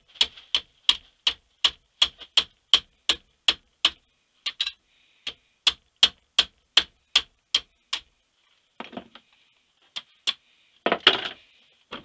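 A small hammer tapping on a stack of short wooden dowels in a Mosin-Nagant rifle barrel, driving a lead slug back out of the bore. The taps are sharp and even, about three a second, then sparser with pauses, and there is a louder clatter about eleven seconds in.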